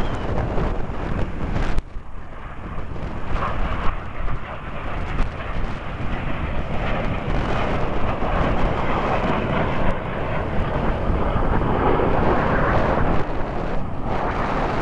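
Strong wind buffeting the microphone, with the rumble of a Red Arrows BAE Hawk jet swelling and fading as it passes, loudest about two thirds of the way through. The sound drops out abruptly about two seconds in, then resumes.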